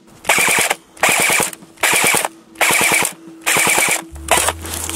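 Airsoft AK electric gun, a BO Dynamics AK Patriot blowback, firing five short full-auto bursts in even succession. Each burst is about half a second of rapid clicks, with a steady low tone underneath.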